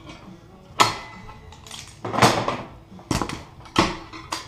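Steel Vise-Grip locking pliers clanking against metal as they are unclamped and handled, about five sharp metallic knocks a second or so apart.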